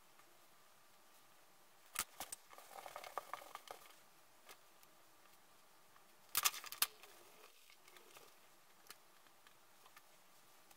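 Quiet handling sounds as hands press clay slabs together into a box on a cloth-covered wooden table: a few sharp taps about two seconds in, a short stretch of cloth rustling, then another cluster of taps past the middle.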